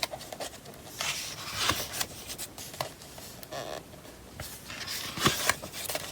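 Pages of a paper instruction manual being turned and handled: short rustles of paper with a few sharp crackles.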